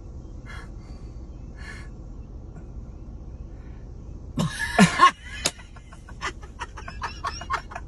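A person laughing: a loud burst about halfway through, then a run of quick short chuckles, over a steady low hum.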